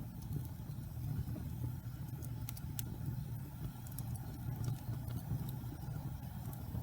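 Log fire burning: a steady low rumble of flames with sharp crackles and pops scattered through it, several close together a little past the middle.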